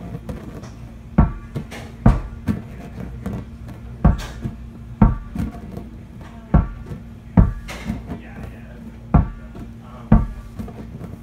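Repeated hard knocks, mostly in pairs about a second apart and recurring every two to three seconds, over a steady low hum.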